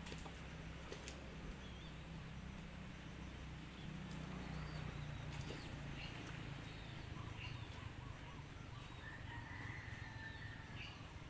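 Faint, scattered short calls of chickens and small birds over a low steady hum.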